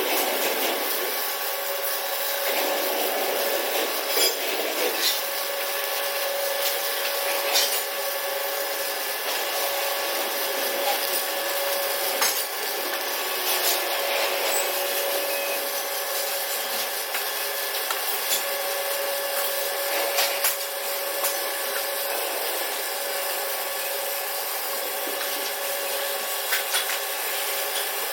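Welding arc on steel pipe running steadily: a continuous crackling hiss with frequent sharp pops and a faint steady hum underneath.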